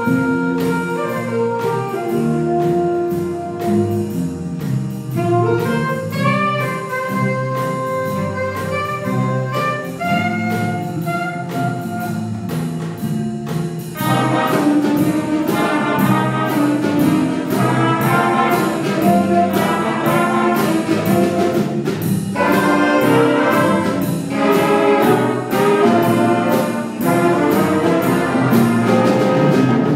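High school jazz band playing, with saxophones, trombones and trumpets over a steady beat; the full band comes in louder about halfway through.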